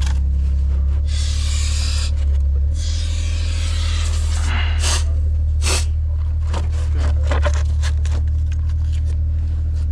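A steady low engine drone from running machinery, with several bursts of scraping or hissing noise over it, the last two short and sharp.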